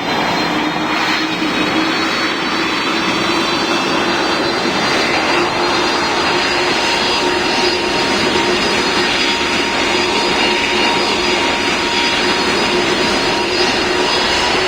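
Boeing 777's jet engines running at high takeoff thrust: a steady rushing noise with a steady whine over it, the whine rising slightly near the end.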